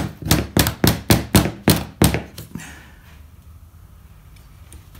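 Small hammer tapping a metal frame channel onto the edge of a stained-glass panel to seat it as tight as it will go: about eight quick knocks over the first two seconds.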